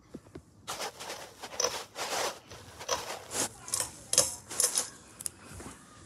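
A ceiling fan's speed control being worked to switch it to medium: a run of irregular clicks and rattles.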